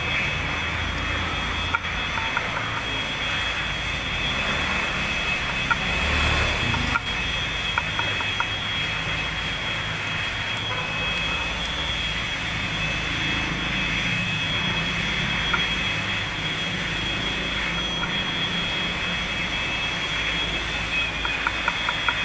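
A machine running steadily, a continuous drone with a constant high whine over a low rumble; a few light ticks near the end.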